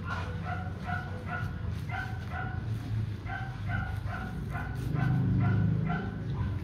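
A dog yipping in a quick, even series of short high-pitched yelps, about three a second, with a low rumble that swells about five seconds in.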